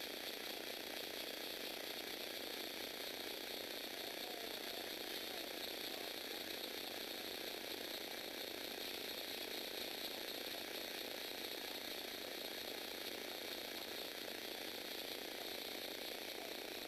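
Lego Technic plastic gear transmission driven by a small electric motor, running with a steady whirring and gear chatter.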